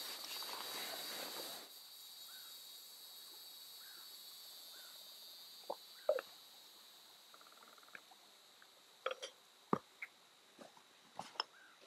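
Rustling for the first couple of seconds, then a steady high insect drone with a few faint chirps. Scattered small clicks and knocks come from gear being handled: a small metal container and a canvas haversack.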